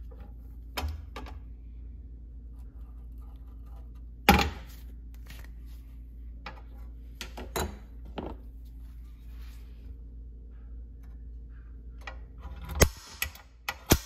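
Steel parts knocking and clinking on a metal workbench as a small steel damper plate and sheet-steel door are handled: scattered sharp knocks, the loudest about four seconds in and a quick cluster near the end, over a steady low hum.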